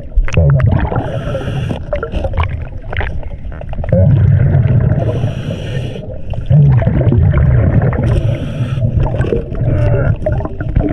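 Scuba diver breathing through a regulator underwater: a hissing inhale through the demand valve, then a loud low rumble of exhaled bubbles, about three breaths.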